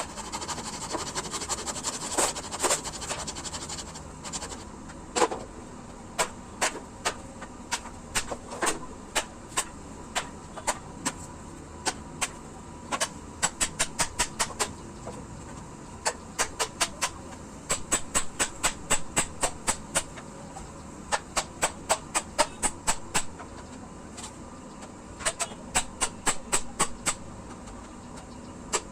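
Hammer blows on the pig shed being repaired, struck in runs of quick strikes, about three or four a second, with short pauses between runs.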